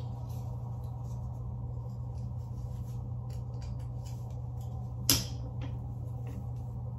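Faint rustling of hair being handled and parted, over a steady low hum, with one sharp click about five seconds in.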